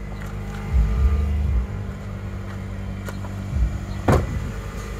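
A 2008 Nissan Sentra's four-cylinder engine idling steadily, fitted with a newly installed cold air intake. A single sharp clunk sounds about four seconds in.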